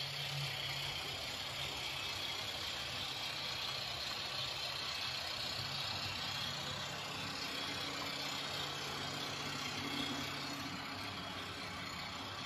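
Model trains running on a layout: a steady whir of small electric motors and wheels on the rails, with a low hum underneath.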